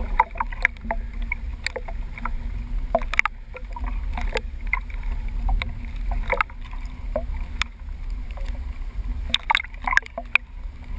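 Small waves lapping and slapping against a windsurf board and a camera at the waterline, with a steady low rumble and many small splashes and knocks.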